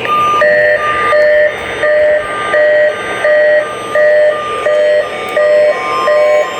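A repeating electronic beeping pattern: steady pitched tones alternating between one note and a two-note chord, about three beeps every two seconds.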